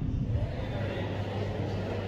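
Steady low vehicle rumble. About half a second in the sound changes abruptly: the deep rumble drops and a brighter, steadier hiss takes over.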